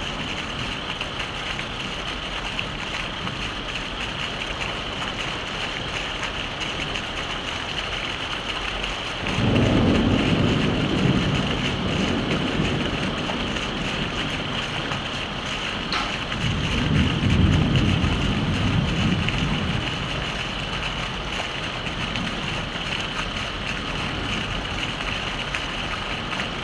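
Steady heavy rain with thunder rumbling twice: a low rumble that starts suddenly about nine seconds in and fades over a few seconds, and a second rumble that swells and dies away a few seconds later.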